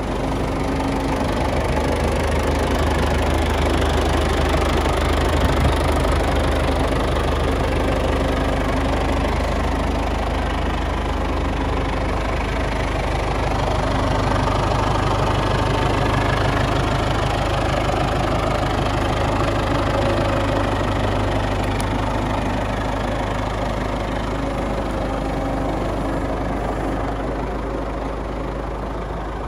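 Case International 685 tractor engine running steadily, its note stepping up a little about halfway through.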